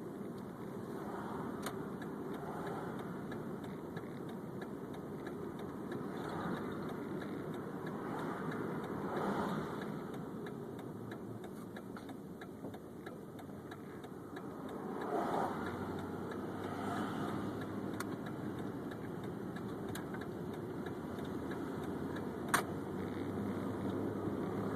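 Car running down the road, with a steady rumble of engine and tyre noise that swells a little now and then. A single sharp click near the end.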